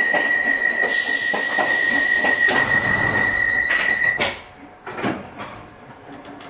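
Inside a London Underground 1973 Stock car at a station stop: a steady, high-pitched warning tone holds for about four seconds amid loud hiss and clunks of the doors closing, then stops suddenly and the car goes quieter.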